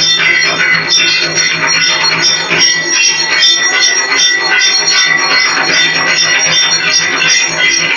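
Brass puja bells ringing rapidly and without pause during an arati: many fast strokes over a steady high ring.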